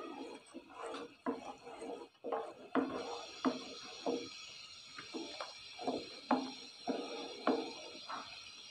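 Wooden spoon scraping and knocking against a metal pot while stirring milk as it reduces, in short strokes about one or two a second. A steady hiss joins about three seconds in.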